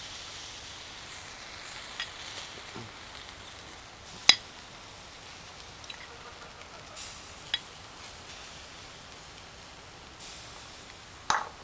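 Chicken kebabs sizzling on a wire grill over hot charcoal briquettes, a steady hiss with a few sharp pops and crackles, the loudest about four seconds in and another near the end.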